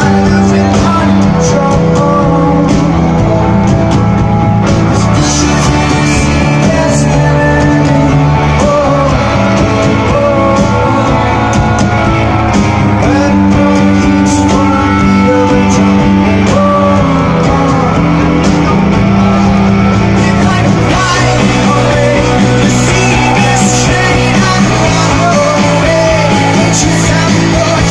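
Live rock band playing a song: drums, bass and guitars, with a lead singer's voice over them. The bass line shifts to a new pattern about two-thirds of the way through.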